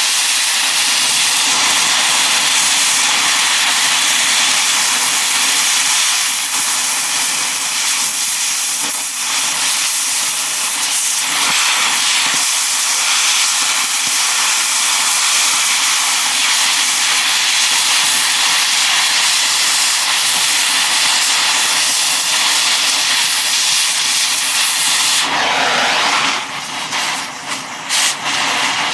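Oxy-fuel cutting torch hissing steadily as it cuts through a steel ball joint cup in a control arm. Near the end the hiss changes and dips a few times.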